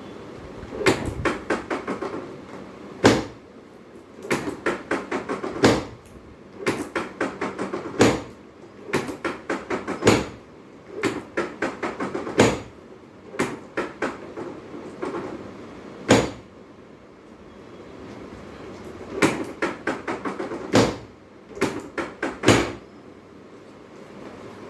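Chiropractic adjustment to correct uneven hips and legs: runs of quick knocks on the patient's body, about six a second, many ending in one harder knock, repeating every couple of seconds.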